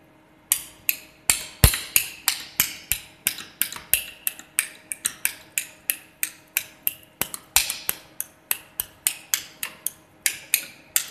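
A hand tool repeatedly knocking and scraping against the steel rollers of a lab two-roll mill as melting polypropylene is worked and mixed on them. The sharp clicks come evenly, about three a second, each ringing briefly, starting about half a second in.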